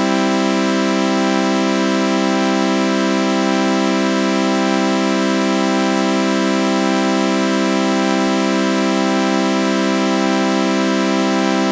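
Synthesized sawtooth-wave chord with a flanger effect, held without a break at a constant level, with a slow, regular sweeping waver about every second and a half to two seconds.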